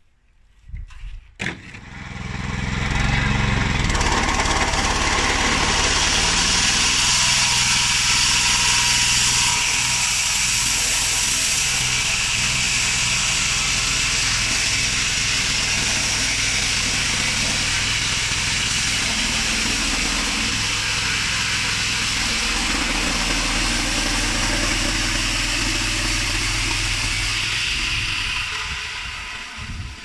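Homemade band sawmill running and sawing through a Paulownia log: the machine starts up a couple of seconds in, runs steadily with a low hum under a loud high hiss, and winds down near the end.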